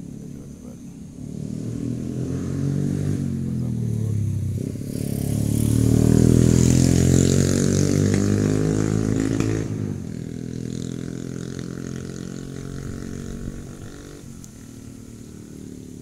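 A passing motor vehicle's engine revving, rising in pitch and growing louder to a peak in the middle, then dropping away abruptly about ten seconds in and carrying on as a fainter engine hum.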